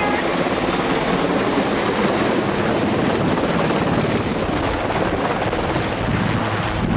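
Firefighting helicopter hovering low overhead with a water bucket slung below: steady, loud rotor and engine noise mixed with the rush of rotor downwash and water spray blowing across the microphone.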